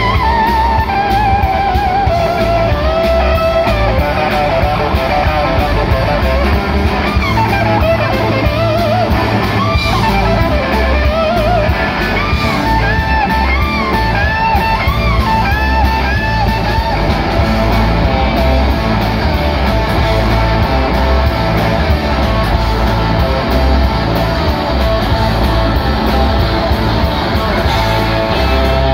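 Live blues-rock band playing an instrumental: an electric guitar solo full of string bends and vibrato over bass guitar and drums, with a run of repeated bent notes in the middle.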